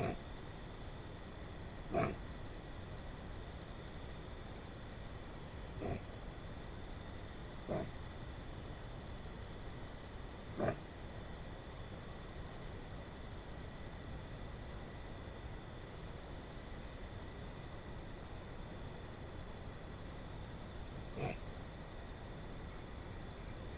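Lowland paca (zamaño) giving its snoring call: short grunts every couple of seconds, then a long pause before one more near the end. A steady, pulsing high-pitched whine runs under it throughout.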